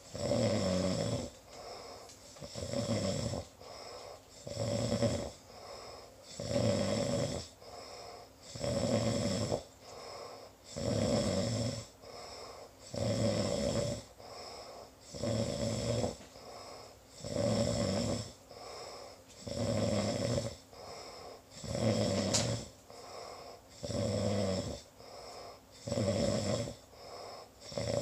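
Steady snoring in a regular rhythm: a loud snore about every two seconds, with a softer breath sound in between.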